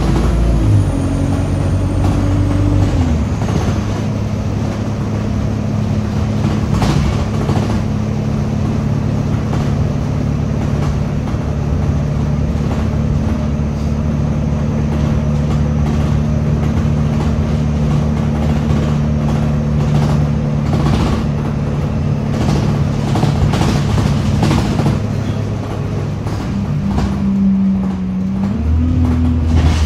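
Single-deck bus engine and drivetrain heard from inside the passenger saloon while it drives, a steady low drone with scattered rattles and knocks from the body. The engine note shifts about three seconds in and again near the end.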